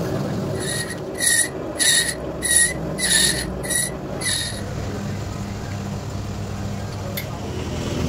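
Metal lathe running with a motorbike brake drum hub spinning in it, the cutting tool squealing in six short, high-pitched screeches as it bites into the metal over about four seconds, then only the steady hum of the lathe.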